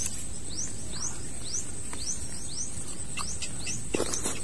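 Pond-side ambience of a steady, high insect drone with a bird's quick, high chirps repeated many times over it.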